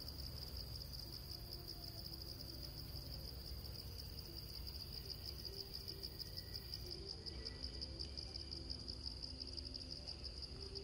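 Insect chorus in the forest: a steady, high, finely pulsing trill held at one pitch, over a low rumble.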